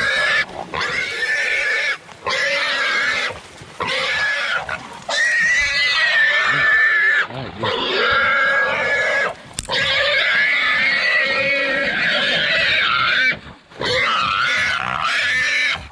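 A wild hog squealing loudly and continuously: a run of long, high-pitched squeals, each a second or two, with short breaks for breath between them.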